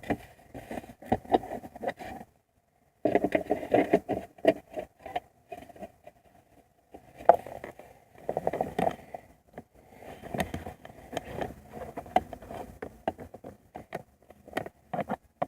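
Hands working plastic car interior trim: irregular scraping, rubbing and sharp clicks as console pieces are handled and fitted, with a short pause about two seconds in.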